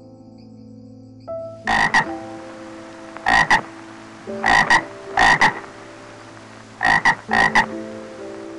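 A frog croaking: six short, double-pulsed croaks, the first about two seconds in and the last two close together near the end. Soft background music with sustained chords plays beneath.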